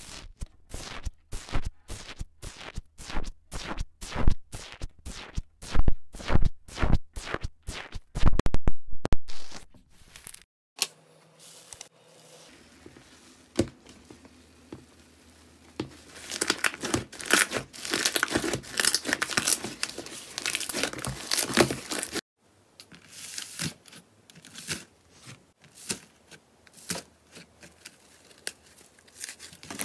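Slime worked by hand, making crisp clicks and pops in quick succession for about the first ten seconds, then a crinkling, tearing noise after a cut, and softer scattered crackles near the end.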